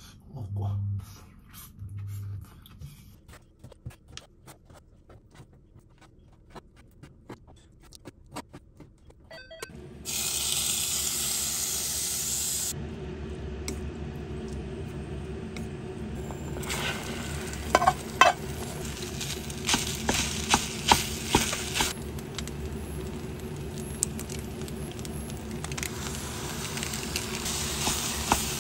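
Faint scattered clicks at first. About ten seconds in, food starts sizzling steadily in a stainless steel pan, first chicken pieces and later egg fried rice, with sharp clicks and scrapes of chopsticks stirring against the metal.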